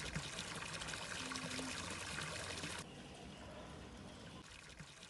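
Water pouring from a pipe into a swimming pool, a steady splashing hiss that drops to a quieter hiss about three seconds in.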